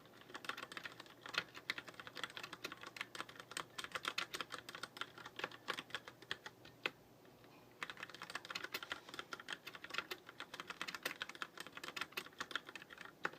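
Deck Francium Pro mechanical keyboard with tactile brown switches being typed on lightly and softly: a quick, uneven stream of keystroke clicks. The typing pauses for about a second midway, then resumes.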